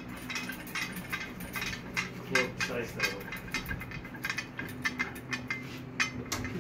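Irregular light metallic clicks and clinks over a steady low hum.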